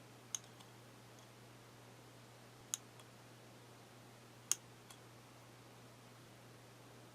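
Three sharp clicks about two seconds apart, each followed by a fainter tick, from small hard objects being handled. A steady low electrical hum runs underneath.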